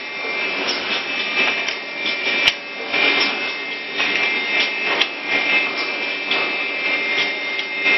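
Multi-head wood drilling machine (SSZ121 three-angle type) running, its electric drill motors giving a steady high whine, with frequent short clicks and knocks, the loudest about two and a half seconds in.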